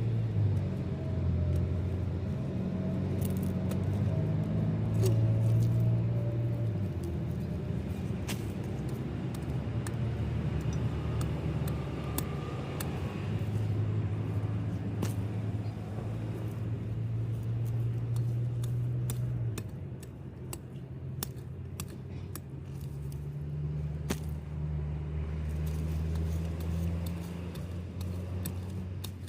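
Low, steady engine-like hum whose pitch shifts a few times, with scattered small clicks and rattles on top.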